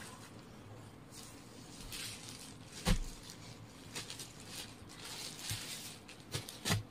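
Saree cloth rustling and swishing as it is handled and unfolded. There is a sharp knock about three seconds in and a few lighter taps near the end.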